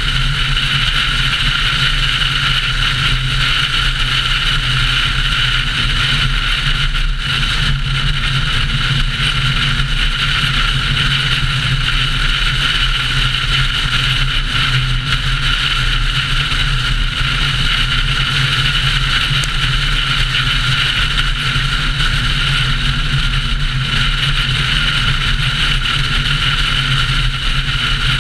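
Car driving at highway speed, a steady engine and road drone with wind noise, picked up by a GoPro mounted on the outside of the car. It holds an even pitch and level with no revving or gear changes.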